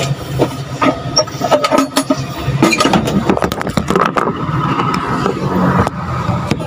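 Handling noise from a phone being picked up and moved around inside a van's cab: a run of irregular knocks, clicks and rubbing, over a steady low hum.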